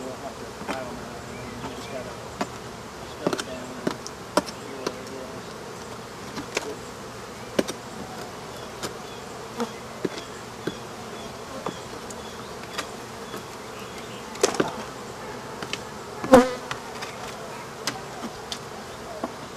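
A swarm of Africanized honey bees buzzing steadily around a hive opened up inside a house wall, with scattered knocks and scrapes as the comb is worked out of the cavity by hand; one knock about sixteen seconds in is louder than the rest.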